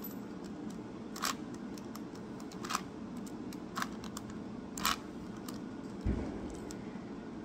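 Plastic 3x3 Rubik's Cube layers being turned by hand, giving sharp clacks about once a second with fainter clicks between. A dull low thump about six seconds in.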